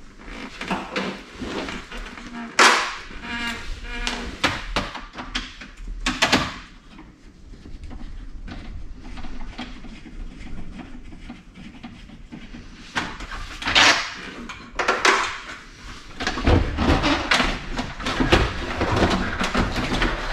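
Hand work on a bus dashboard: scattered clicks, knocks and rattles from a screwdriver, loose screws and the instrument cluster panel being handled and worked loose, with a few louder knocks spread through.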